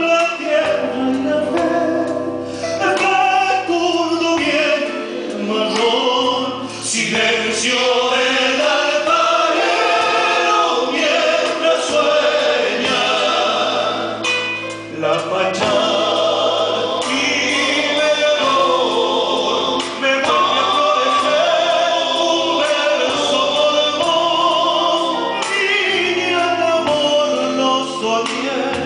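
Live folk song: a male lead voice sings with other voices in harmony over sustained backing.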